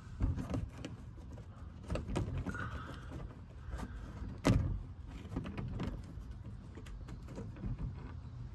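Tools and fasteners handled under a car at the skid plate: scattered knocks and clinks, with one louder knock about four and a half seconds in.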